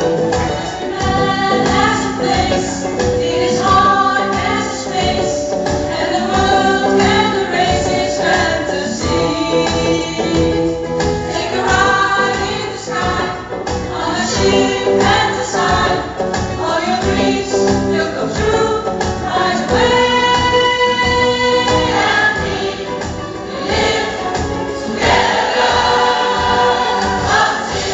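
A pop choir singing in several voice parts over an accompaniment with a steady beat.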